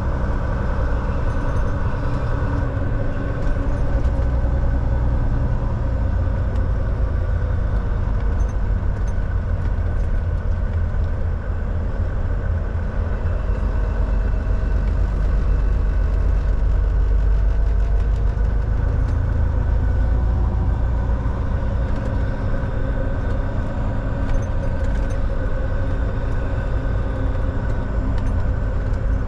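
Volvo semi truck on the move: steady low diesel engine rumble with road noise.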